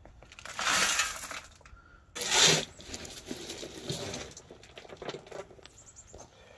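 Crushed-stone track ballast crunching and clattering in two loud bursts within the first three seconds, followed by lighter clicks of stones.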